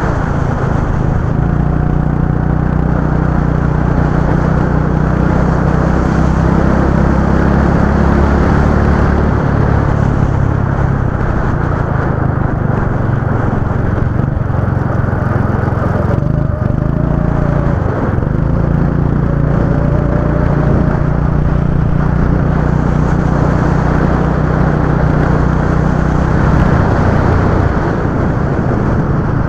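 Go-kart engine running at speed, its note holding steady on the straights and dropping briefly through the corners: about a third of the way in, just past halfway, and near the end.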